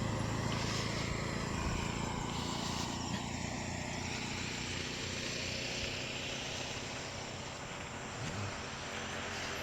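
A running engine: a steady low hum over a broad noise that slowly fades.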